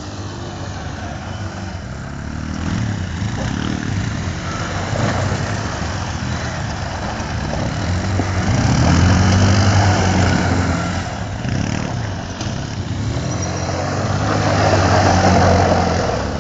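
Several ATV (quad bike) engines running and revving, the pitch rising and falling. Louder about halfway through and again near the end as the quads pass close.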